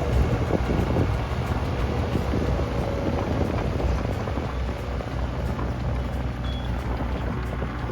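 Mini excavator's diesel engine running steadily, with irregular clicks and scraping as crushed stone is pushed and spread.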